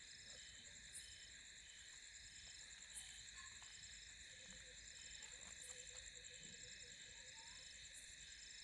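Faint chorus of crickets chirping at night in steady, evenly repeated pulses, about two a second, with a few soft clicks.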